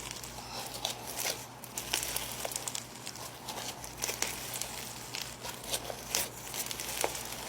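Snow fizz slime being squished and stretched by hand, giving irregular soft crackles and clicks.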